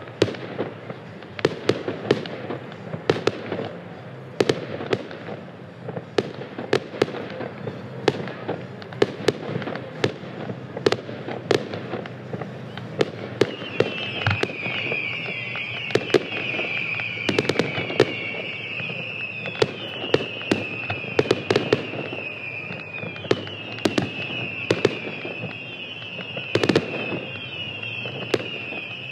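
Fireworks display: a rapid, irregular string of sharp bangs and pops. From about halfway, a high tone runs alongside, dipping slightly in pitch over and over.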